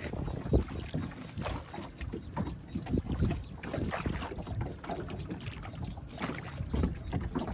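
Water splashing and sloshing in irregular strokes, with wind buffeting the microphone.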